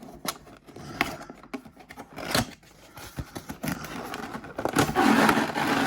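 Packaging being handled while a model train coach pack is unboxed: scattered clicks and scrapes, then a loud, continuous rustle and crinkle starting a little under five seconds in, loud enough to warrant an apology to headphone listeners.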